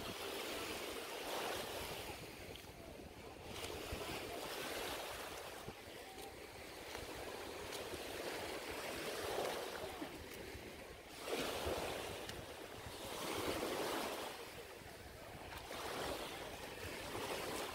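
Shallow sea water sloshing and splashing around a swimmer, with small waves; the rush of water swells and fades every couple of seconds. Wind rumbles on the microphone underneath.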